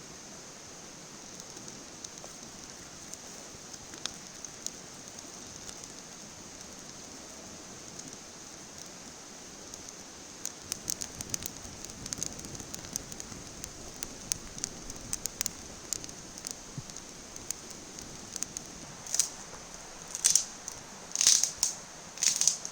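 Campfire catching from a waxy fire starter and wood chips, crackling and popping over a steady hiss; the crackles start about ten seconds in, grow thicker, and a few louder snaps come near the end.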